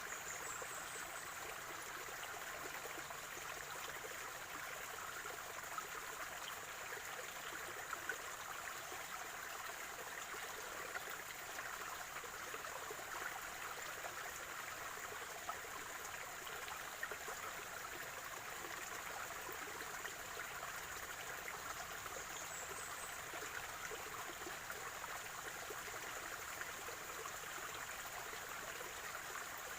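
Spring-fed stream flowing and gurgling steadily, with small splashes here and there. Two brief high chirps sound over it, one near the start and one about two-thirds of the way through.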